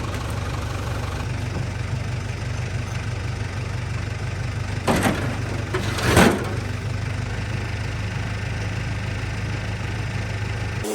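An engine idling steadily, with two loud clunks about five and six seconds in.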